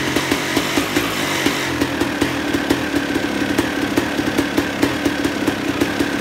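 Suzuki RM250 single-cylinder two-stroke dirt bike engine idling steadily through a Pro Circuit R304 silencer on the stock expansion chamber, with sharp exhaust pops several times a second.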